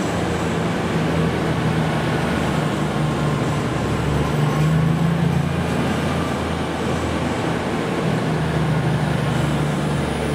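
East Midlands Trains Class 222 Meridian diesel-electric multiple unit pulling away from the platform, its underfloor Cummins diesel engines under power with a steady drone.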